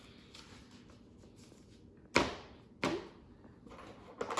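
Things handled on a tabletop: a quiet stretch, then a few sharp knocks, the loudest about two seconds in, another just after and one more near the end.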